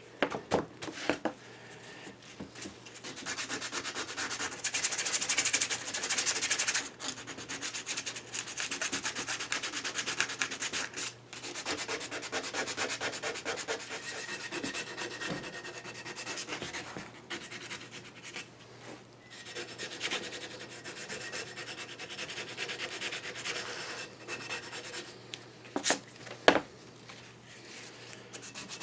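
Hand sanding a metal lathe part with sandpaper: quick back-and-forth scratching strokes, with a couple of sharp knocks near the end.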